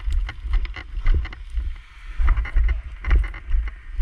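Footsteps through tall dry grass: rustling and snapping stalks, with low thumps from a body-worn microphone jostling at each stride.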